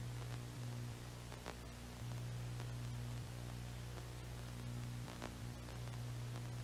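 Faint steady low electrical hum under an even hiss, with a few faint clicks; no distinct event stands out.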